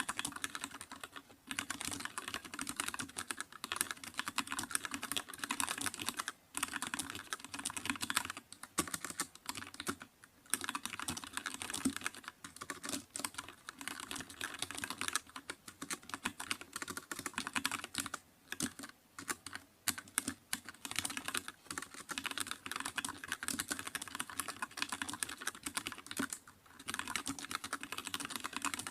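Typing on a computer keyboard: a fast, continuous run of keystrokes with a few brief pauses.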